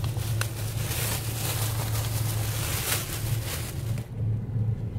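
Road and engine noise inside a moving vehicle's cabin: a steady low drone with a hiss over it that drops away about four seconds in, and a faint click or two.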